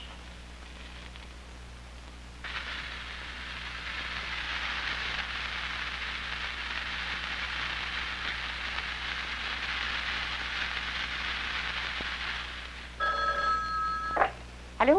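Sound effects from an animated film's soundtrack, under a low steady hum: a steady hiss that starts a couple of seconds in and runs for about ten seconds, then a brief ringing tone of several pitches together, followed by two quick rising whistle-like glides near the end.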